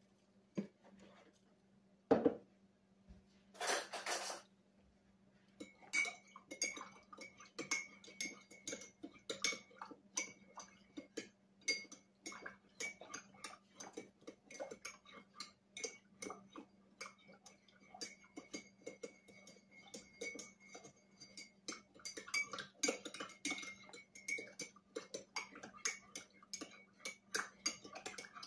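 A spoon stirring briskly in a ceramic mug, clinking rapidly and steadily against its sides so that the mug rings faintly. A single knock comes about two seconds in and a brief hiss shortly after, before the stirring starts.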